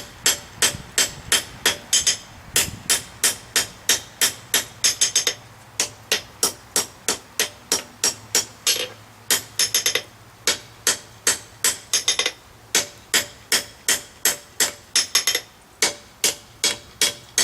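Blacksmith's hammer striking hot steel on an anvil in a quick, steady rhythm of about three to four blows a second, each ringing sharply, blending a forge weld on a pair of tong reins. A low steady hum runs underneath.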